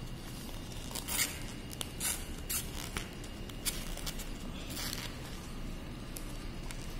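Fingers picking at a paper sticker sheet and peeling a sticker off its backing: a series of short, irregular paper crackles and scratches.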